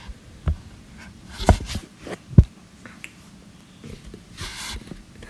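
A few scattered taps and knocks of handling, the loudest a dull low thump about two and a half seconds in, with a short breathy rustle a little before the end.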